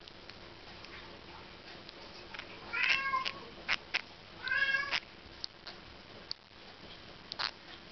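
Striped raphael catfish (Platydoras) squeaking twice, each squeak about half a second long and pitched like a short meow, with a few short clicks in between. The squeaks come from the catfish rubbing its pectoral fin spines in their sockets, its alarm or defence call.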